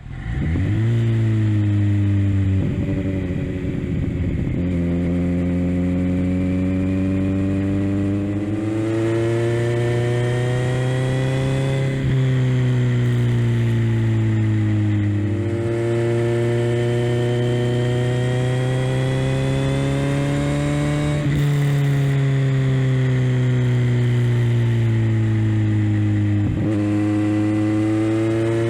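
Kawasaki Z900's inline-four engine through a Leo Vince LV-10 slip-on exhaust, ridden at moderate revs: the pitch climbs steadily under throttle, then drops sharply at each upshift, four times over the stretch.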